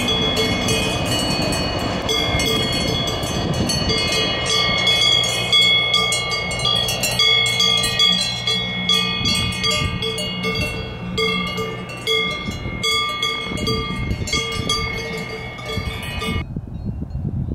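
Cowbells on cattle clanking continuously in an uneven rhythm of many strikes, with bright, ringing metallic tones. The sound cuts off abruptly near the end.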